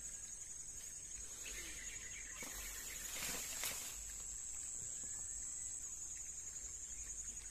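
Insects chirring steadily at a high pitch, with a short rustle about two and a half to four seconds in.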